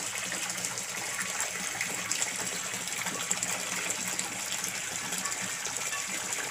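Water jetting steadily from a pipe into a concrete fish tank, splashing onto the water's surface.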